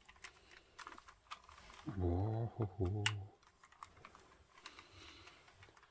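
Scattered light clicks and faint crinkling as a model car is handled and turned over amid bubble wrap in a cardboard box.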